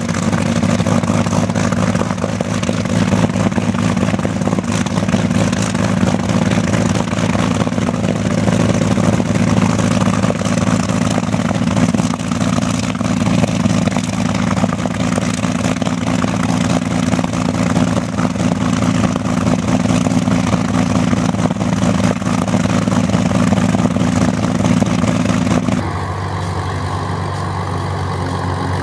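Messerschmitt Bf-109's V12 aero engine running steadily on the ground, propeller turning. Near the end it changes abruptly to a quieter Supermarine Spitfire engine running.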